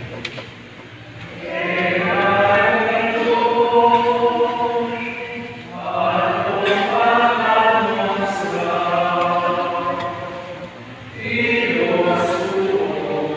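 A group of voices singing a hymn in long chant-like phrases, three phrases with short breaths between them.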